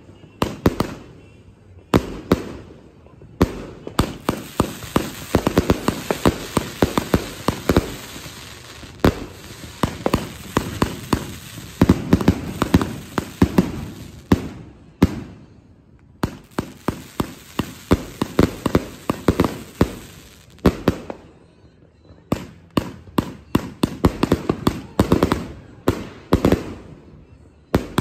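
Dark Knight 110-shot consumer firework cake firing: a rapid, dense string of sharp shots and aerial bursts with crackle. There is a brief pause about halfway through and a lull a little later before the firing picks up again.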